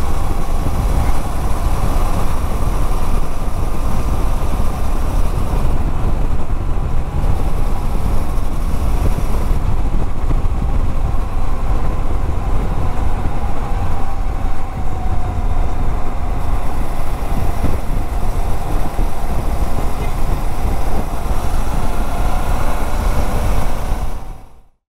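Suzuki motorcycle's engine running steadily while riding along a road, mixed with rushing wind noise. The sound fades out near the end.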